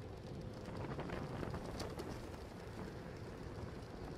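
Steady wind rumble and road noise on a bicycle-mounted camera riding along a street in traffic, with a faint click about two seconds in.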